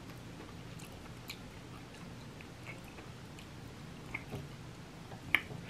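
Close-miked chewing of soft cooked ackee, with small wet mouth clicks scattered through and one sharper click near the end.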